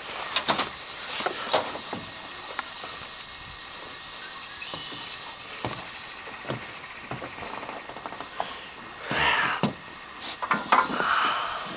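Scattered light knocks and rustling from someone moving about in a small aluminium boat, with longer rustles about nine and eleven seconds in, over a faint steady high tone.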